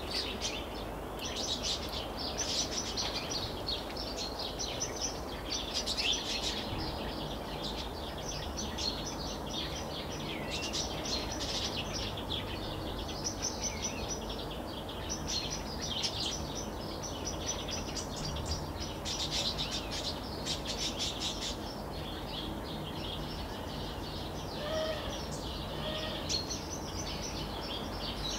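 Small songbirds chirping and twittering in quick, dense runs, over a steady low hum.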